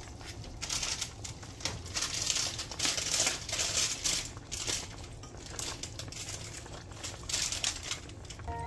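Chicken stew bubbling at a boil in a stainless steel pot, a steady crackle of many small pops, with a silicone spatula stirring through the chicken pieces.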